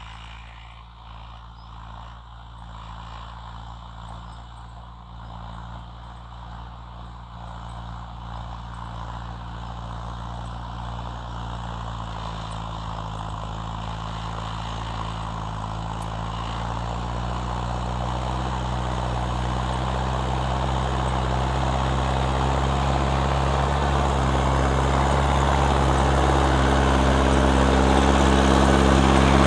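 Mahindra Arjun 605 tractor's diesel engine running steadily under load while pulling a disc plough, growing steadily louder as it approaches.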